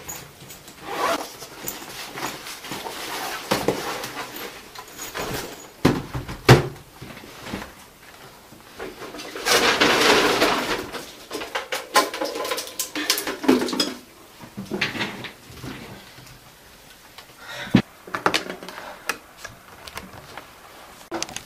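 Handling noises of a laptop and its cables on a wooden desk: scattered clicks and knocks, with a louder rustle about ten seconds in.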